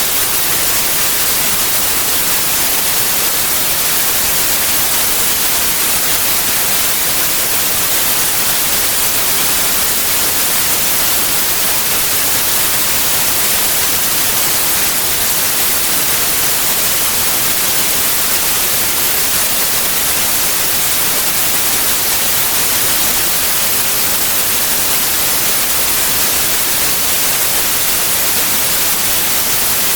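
White noise: a steady, loud, even hiss, brightest in the treble, with no change or pattern throughout.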